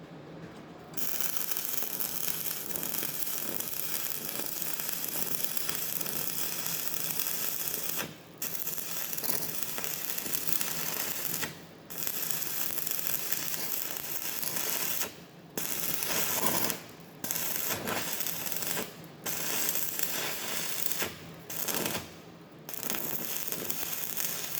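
Stick welding arc crackling as tack welds are laid, starting about a second in and cutting out briefly about eight times, more often in the second half, as the arc is broken and struck again.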